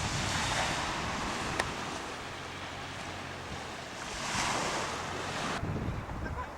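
Ocean surf washing on a beach, swelling twice about four seconds apart, with wind rumbling on the microphone. The surf cuts off suddenly about a second before the end.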